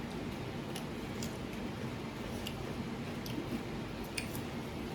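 Quiet eating sounds: faint squishes and a few small ticks as food is handled and chewed, over a steady low hum.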